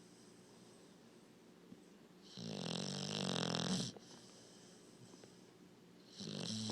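Puppy snoring in its sleep: one buzzy snore about two seconds in that lasts about a second and a half, then a pause, and the next snore starting near the end.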